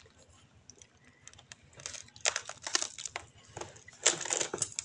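Montong durian husk being pried apart by hand, its fibrous segments cracking and tearing in several short crackling bursts, the loudest near the end.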